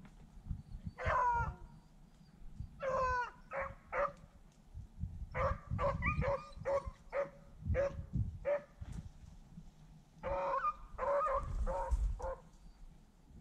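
Rabbit hounds baying on a rabbit's trail: a few drawn-out bawls, then two quick runs of short, choppy barks. Low rustling of brush runs underneath.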